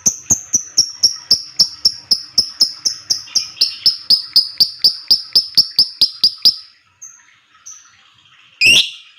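Lovebird giving its rapid 'ngetik' call: a steady run of short, sharp, high chirps at about four a second. The run stops about two-thirds of the way through, and a single louder, harsh call follows near the end.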